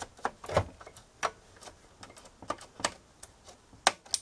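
Keys and switches of a Monroe 920 nixie-tube electronic calculator being pressed one after another: about a dozen sharp, irregularly spaced clicks, the loudest a little over half a second in.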